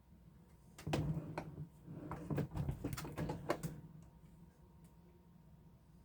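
Folding knives being handled and set down on a surface: a string of clicks, knocks and rustling for about three seconds, then it goes quiet.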